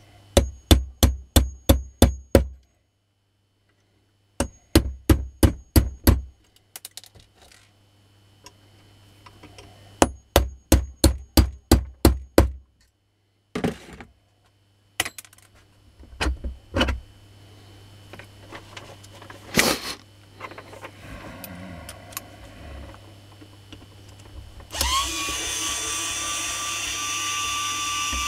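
Claw hammer striking a punch or tool on a washing-machine motor's metal housing in three quick runs of six or seven blows, about three a second, each blow ringing. A few scattered knocks follow, and near the end a small electric drill runs with a steady whine.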